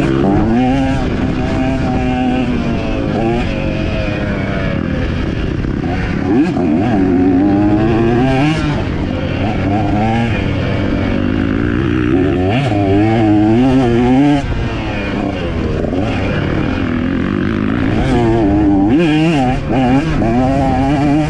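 KTM 125 two-stroke motocross bike engine revving hard, its pitch climbing and dropping over and over as the rider shifts gears and rolls on and off the throttle.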